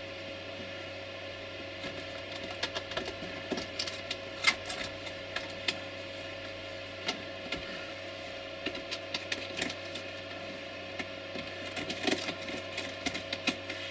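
Irregular small clicks and rattles of coarse ballast grains dropping from a hand-held ballast-spreader hopper onto model railway track, over a steady low hum. The coarse ballast is a bit too big for the hopper's slot, so it trickles through only sporadically.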